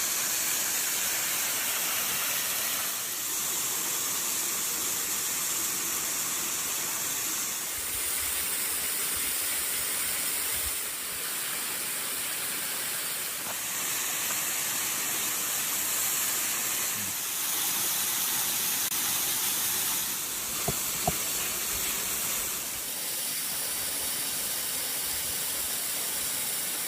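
Food sizzling in a hot pan: a steady hiss whose tone and level shift abruptly every few seconds, with two small clicks about three quarters of the way through.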